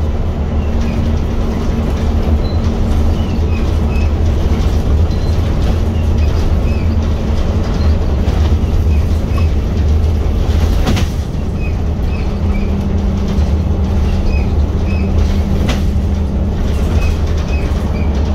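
Scania L94UB single-deck bus heard from inside the passenger saloon while under way: its five-cylinder diesel engine and road noise run loud and steady, with a low drone. The engine note drops a little in pitch about twelve seconds in, and there are two brief knocks from the bus body, one about eleven seconds in and one near sixteen seconds.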